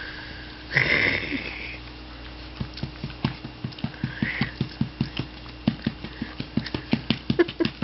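Steady rhythmic patting on a baby's back to bring up a burp, about three pats a second, starting a couple of seconds in. A brief rough noise sounds about a second in, before the patting starts.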